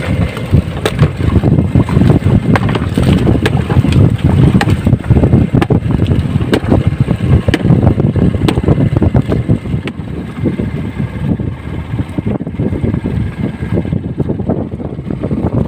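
Strong wind buffeting the microphone on a small outrigger boat in choppy water. Irregular knocks against the bamboo outrigger and water splashing at the hull come through as a yellowfin tuna is gaffed alongside.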